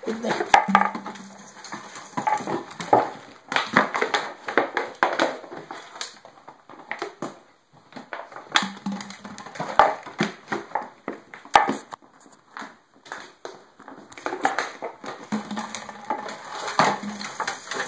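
A dog playing close to the microphone: a busy run of scuffles, clicks and knocks, mixed with handling noise from the camera held right against it.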